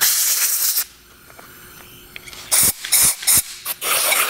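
Compressed-air blow gun hissing, blowing metal chips out of freshly tapped head-stud holes in an engine block. One longer blast at the start, then a quiet spell and several short quick blasts from about two and a half seconds in.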